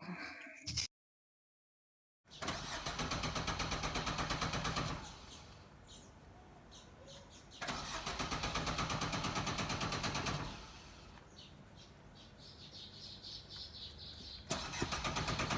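A car's starter motor cranking the engine in three bursts of about three seconds each, with a rapid, even pulse. The engine never catches: it is a car that won't start, which the owner puts down to an electrical problem.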